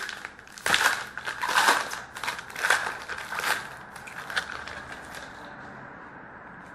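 A Panini Rookie Anthology hockey card pack being torn open by hand, its wrapper crackling and rustling in a run of quick strokes that die away after about four seconds.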